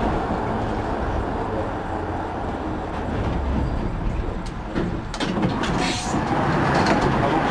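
EGT6 tram running along the track, heard from the driver's cab: a steady low rumble of wheels and running gear, with a few short sharp clicks in the second half.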